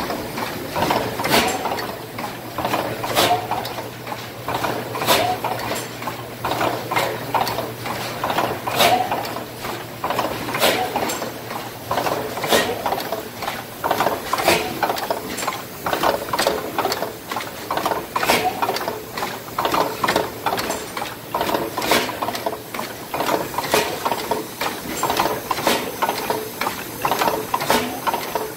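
Klein Twin four-stroke twin-cylinder gas engine (National Transit Pump & Machine Co., circa 1912) running slowly, its valve gear and cam mechanism clattering and clicking steadily, with a sharper click about every two seconds.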